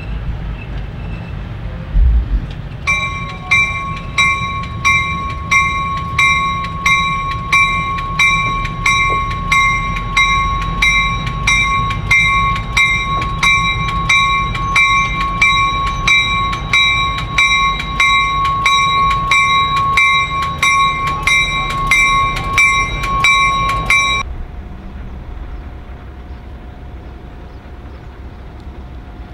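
Railroad bell ringing steadily, a little under two strikes a second, over the low rumble of an arriving diesel-hauled passenger train. The bell cuts off suddenly near the end, leaving a quieter low diesel rumble.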